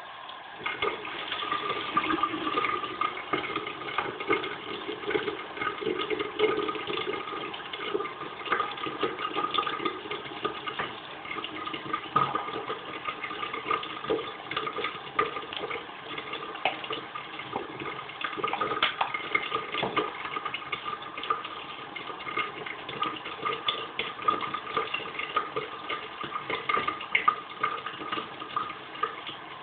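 Tap water running into a bathroom sink, starting about half a second in and running steadily, with irregular small splashes as the face is washed.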